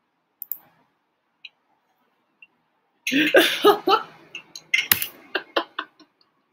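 A man's brief cough-like vocal outburst about three seconds in, followed by a run of sharp clicks. Before it, only a few faint ticks.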